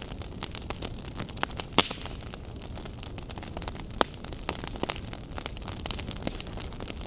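Campfire burning: a steady low hiss and rumble of flames with frequent sharp crackles and pops of burning wood, two louder snaps about two and four seconds in.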